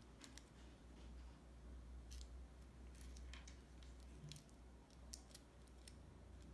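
Faint, irregular clicks and taps of small plastic building bricks and wheels being handled and pressed together, over a low steady hum.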